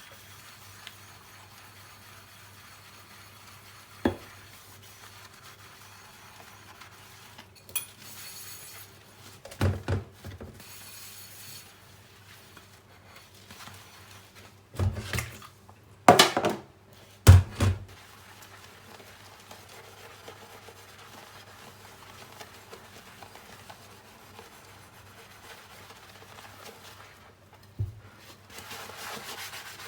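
Dishes being washed by hand: plates and bowls clink and knock now and then, with a cluster of louder clatters about halfway through and soft rubbing between.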